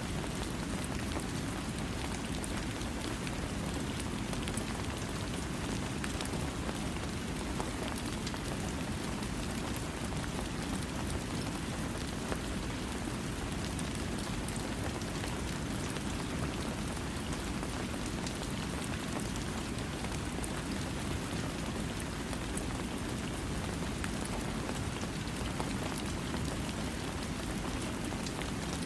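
Steady rain falling, a continuous even hiss with a dense patter of individual drops, without thunder.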